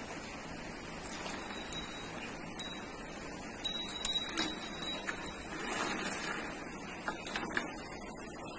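Small metal bells on a cow's neck collar jingling in a few short shakes as the cow moves its head while drinking from an automatic water bowl; the loudest cluster is around the middle.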